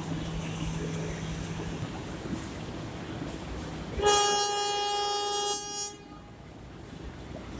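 Train horn sounding one steady-pitched blast of about a second and a half, starting about four seconds in and cutting off sharply. Under it is the steady low rumble of the station and the standing train.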